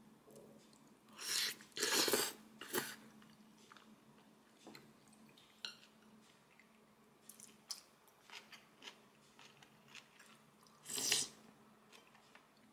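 Close eating sounds of a person having kongguksu, Korean cold soy-milk noodle soup, and gimbap: chewing, with a few short, loud, noisy bursts about a second or two in and again near the end, and small clicks of a spoon and chopsticks in between.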